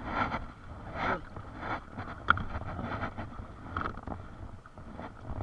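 Kayak paddle strokes: the blade dipping and splashing into the water about once a second, with a single sharp click about two seconds in.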